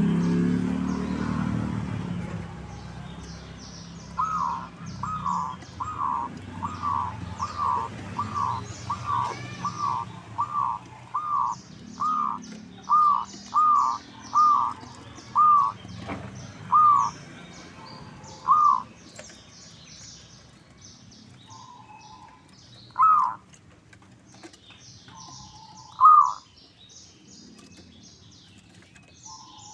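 Zebra dove (perkutut) singing. A run of about eighteen short, clear notes starts a few seconds in and slows as it goes, followed by two single notes later. Faint high chirps of small birds sound throughout.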